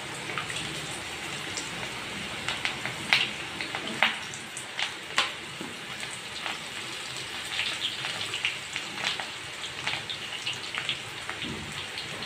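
Onion pakoda (onion and gram-flour fritters) deep-frying in hot oil in a kadai: a steady sizzle with frequent sharp crackles and pops as fresh batter goes into the oil.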